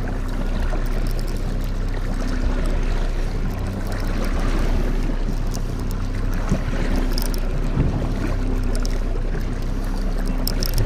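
Mercury outboard motor running steadily at trolling speed, with wind and choppy water against the boat's hull.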